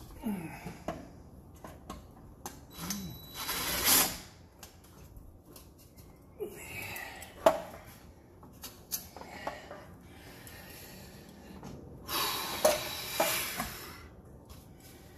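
Tools being handled: scattered clicks and clatter with a few short rasping, rubbing bursts, the loudest about four seconds in and again near the end, as a plastic bit case and tools are moved and set down on the metal top of a water heater.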